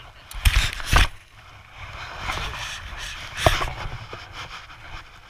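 Knocks and scuffing on a body-worn action camera as the toddler wearing it moves about in snow: two sharp thumps about half a second apart near the start and another about three and a half seconds in, with low rumbling and rustling between.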